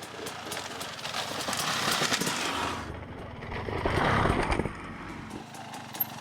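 Off-road vehicle running over rough ground. Its noise swells twice, with many scattered sharp clicks and rattles.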